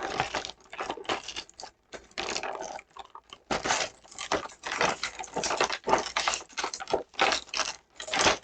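Plastic model-kit parts and packaging being handled: irregular rustling and clicking in short bursts as plastic tag fasteners holding the parts are worked loose.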